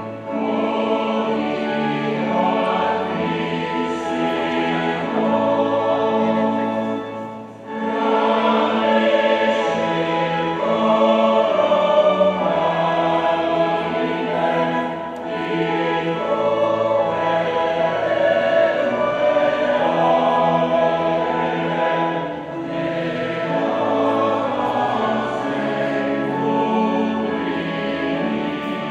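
Choir singing a hymn in long sustained phrases, with a brief break between phrases about seven and a half seconds in.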